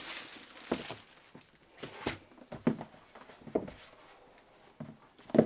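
Hands handling a white cardboard MacBook Pro retail box: a brief crinkle of plastic shrink-wrap at the start, then a handful of soft taps and knocks of hands and box on the desk, roughly a second apart.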